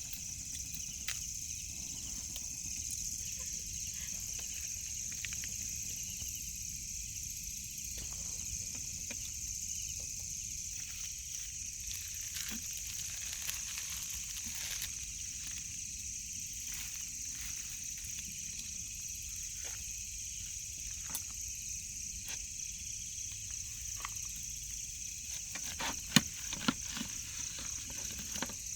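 Steady, high-pitched insect chorus, crickets or cicadas, with scattered faint clicks and a couple of sharper knocks near the end.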